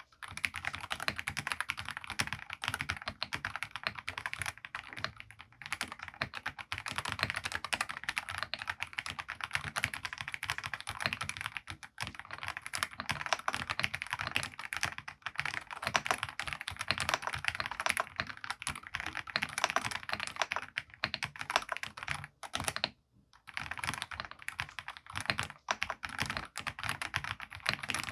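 Fast continuous typing on a Darkflash DF98 mechanical keyboard with DF yellow switches, dense key clicks broken by short pauses three times.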